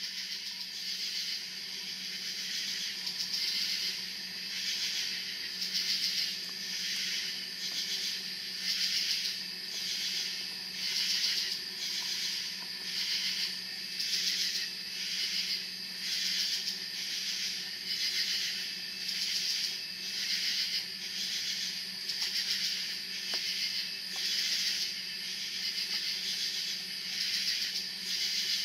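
Katydids calling in a steady chorus, a high, rasping pulse repeating about once a second.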